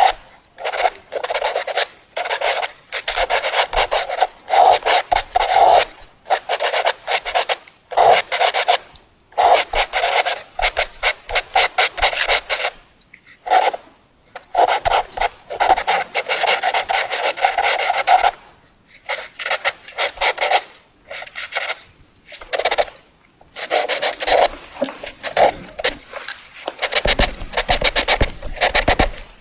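Fast drawing on paper: quick, scratchy strokes coming in bursts of a second or two, with short pauses between.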